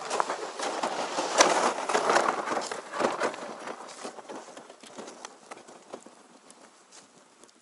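Line and spool of an ice-fishing tip-up reel being handled and wound by hand: a dense run of small clicks and rustles, loudest in the first few seconds, then fading.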